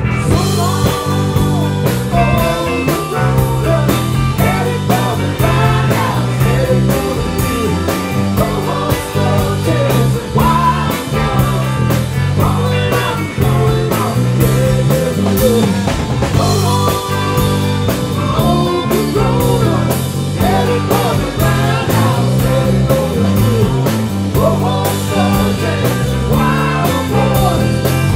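Rock band playing live at full volume: electric guitars, bass guitar and drum kit, with a steady beat of drum and cymbal hits.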